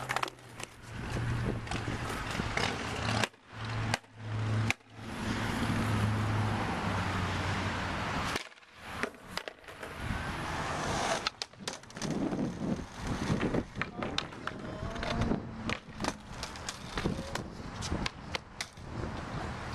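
Skateboard wheels rolling over rough asphalt, with sharp clacks of the board popping, striking and landing, most of them in the second half. The rolling cuts off abruptly a few times.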